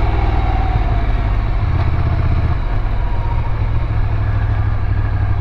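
Ducati Scrambler's air-cooled L-twin engine running steadily on the move, over an even rush of road noise; the engine note shifts briefly about two seconds in.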